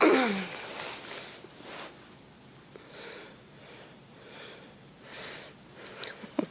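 A cat sniffing at a catnip-scented toy, with a series of soft sniffs and breaths. A short falling voiced sound right at the start is the loudest thing, and a few small clicks come near the end.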